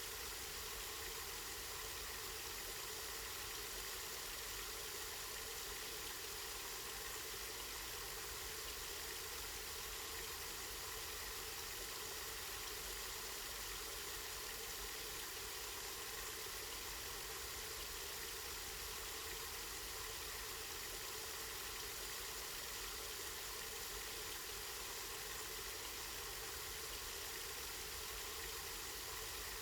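Spring water flowing and splashing steadily, an even, unbroken rush with no changes.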